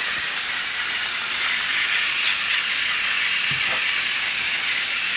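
Battery-powered TrackMaster toy trains running on plastic track: a steady whirring hiss of their small motors and gears, swelling slightly about two seconds in as a train passes closer.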